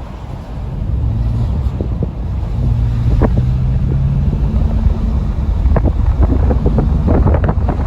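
An engine of a moving vehicle running steadily, with heavy wind buffeting the microphone. Short sharp knocks come in now and then, more often toward the end.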